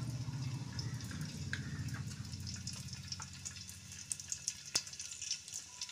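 Ghee going into hot coconut oil in a wide uruli pan. The oil gives faint, scattered crackles and ticks over a low steady rumble that fades away in the first half.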